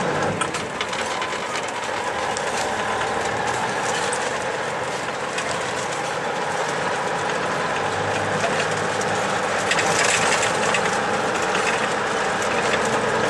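Logging truck driving along, heard from the cab: a steady engine drone with rattling and clatter throughout, a little louder about ten seconds in.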